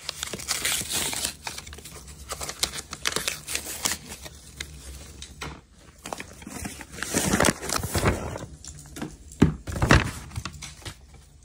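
Cardboard packaging being handled: rustling, scraping and crinkling of a cardboard box with irregular small knocks, busiest about seven to ten seconds in.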